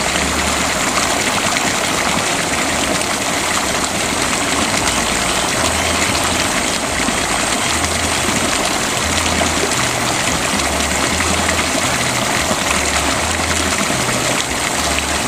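Steady rush of running water, with a low rumble coming and going underneath.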